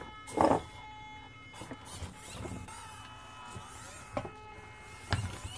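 FTX Ibex mini RC crawler's electric motor and gears whining steadily as it crawls slowly, with a few light knocks.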